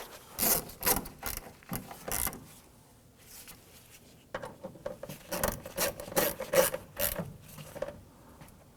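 Irregular rubbing, scraping and clicking of hand work on a car door panel, in two spells with a short lull about three seconds in.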